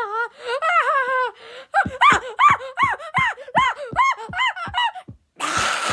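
Donald Duck-style squawking voice giving a quick run of about ten rise-and-fall squawks, roughly three a second, like a laugh. Near the end they stop and a loud steady hiss comes in.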